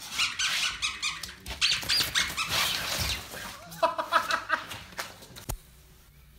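A French bulldog puppy rustling about in a nylon play tunnel, giving several short, high squeaky whines; a single click about five and a half seconds in.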